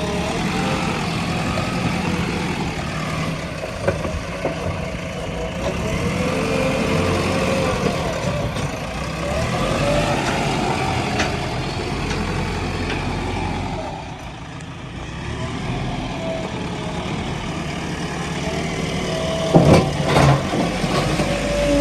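JCB 3DX Xpert 4x4 backhoe loader's diesel engine running as the machine works, its pitch rising and falling under load. It eases off briefly about two-thirds of the way through, and there are a few sharp knocks near the end.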